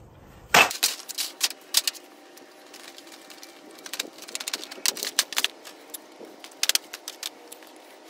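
Metal clanking and a run of sharp clicks and clinks as a steel aluminium-ingot mould is set down on a metal tray and a steel rod and gloved hands work the smoking Petrobond sand of a just-poured casting flask, breaking the mould open. The loudest clank comes about half a second in, and the clicks come in irregular clusters after it.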